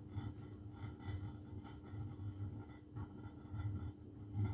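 Electric rice cooker cooking rice: a low, uneven rumble of boiling that swells and fades every half second or so, over a steady low hum.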